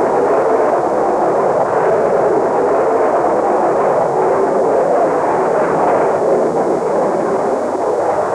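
Steady engine and air noise of a jet aircraft in flight, an even rushing sound with no change in pitch.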